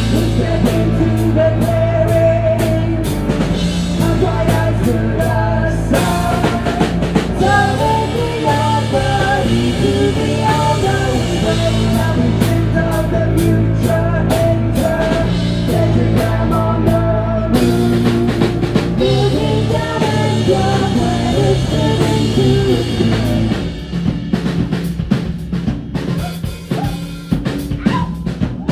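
Electric guitar and drum kit of a two-piece rock band playing live, with sustained, heavy guitar notes over steady drumming. Near the end the low guitar notes drop away and the drum hits stand out more.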